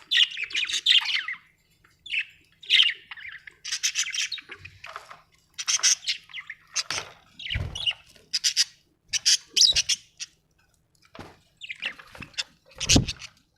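Budgerigar warbling and chirping in quick, scratchy bursts with short pauses between them. Two dull knocks come through, one past the middle and a louder one near the end.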